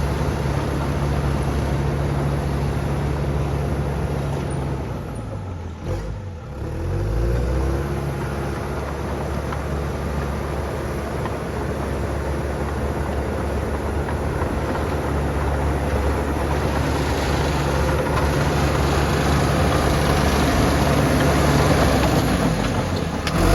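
Diesel engine of a 1991 John Deere 650G crawler dozer running steadily while grading. About six seconds in, its pitch drops briefly and then climbs back.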